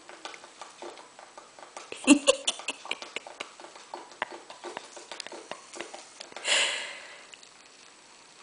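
A 10-month-old baby making a funny breathy sniffing noise, once, about six and a half seconds in, among scattered light taps and clicks. There is a sharp, loud short sound about two seconds in.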